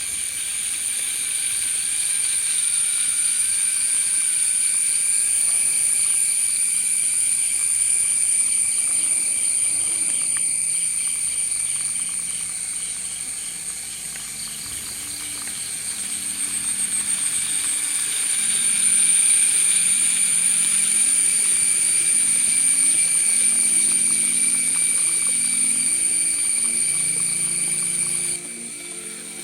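Small DC motor spinning a propeller on a homemade RC car, a steady high-pitched whine that grows louder and softer, then cuts off suddenly about a second before the end.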